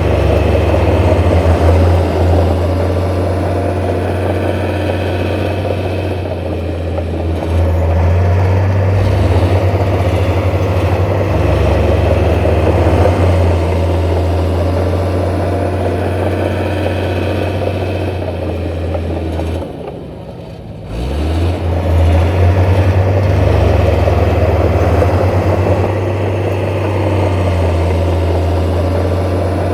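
Heavy diesel engine of earthmoving machinery running steadily. About two-thirds of the way through it drops away briefly, then revs back up.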